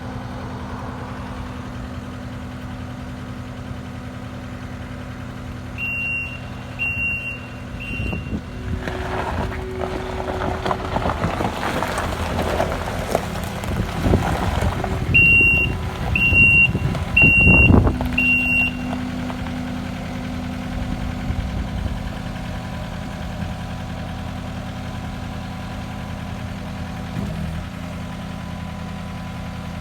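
Kubota SSV75 skid steer's diesel engine running, its reversing alarm beeping three times and later four times, about one beep a second. Between and around the beeps the engine grows louder for about ten seconds, then settles back to a steady idle.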